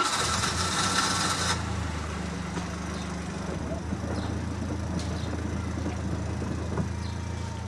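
A car engine running steadily with a low, even hum, after a brief rush of noise in the first second or so.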